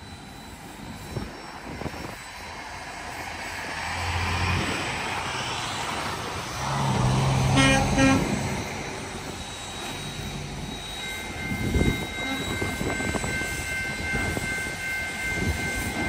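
Canadian Pacific 2816 steam train passing: a rush of train noise that swells to its loudest about halfway through, then eases off.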